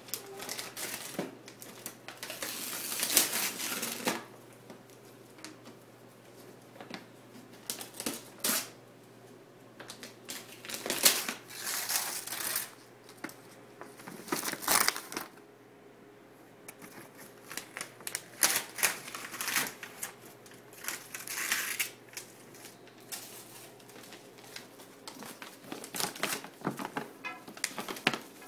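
Gift-wrapping paper being torn and crumpled off a box, in repeated bursts of rustling and ripping with short pauses between.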